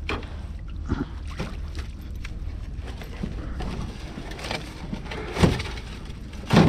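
Knocks and thumps of gear being handled in a boat, over a steady low rumble; the loudest thumps come about five and a half seconds in and near the end.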